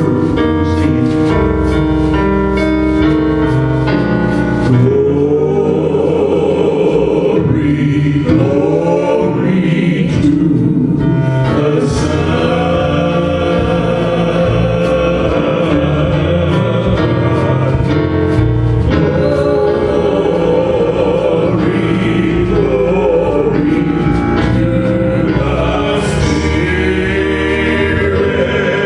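Gospel worship song: a group of voices singing over instrumental backing, with a steady beat in the first few seconds.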